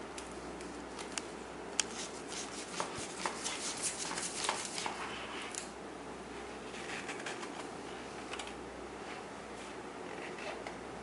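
A small child's hands handling a card children's pull-tab picture book: irregular light taps, scrapes and rustles of the stiff pages and sliding tab, clustered in the first half and sparser later, over steady room hiss.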